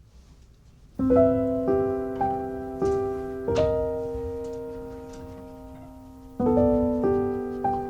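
Slow solo piano music beginning about a second in: a few struck notes over a held chord that fades away, then a new chord near the end.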